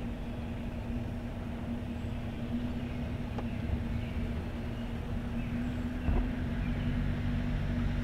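Vehicle engine idling with a steady low hum, and a brief thump about six seconds in.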